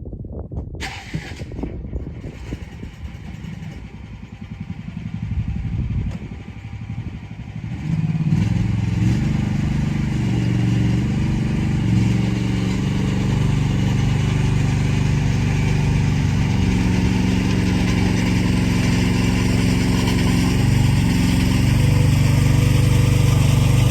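Diesel engine of a piece of heavy equipment running, low and uneven at first, then revving up about eight seconds in and running steadily under load, its pitch shifting up and down as the machine works.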